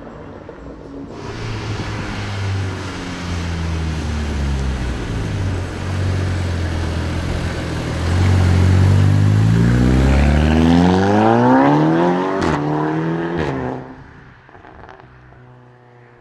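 Volkswagen Golf accelerating hard: its engine note climbs steadily in pitch for several seconds, with two sharp cracks near the top of the climb, then falls away suddenly.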